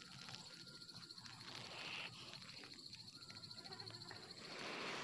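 Faint insect chirping, a steady fast pulse, with soft rustling about two seconds in and again near the end.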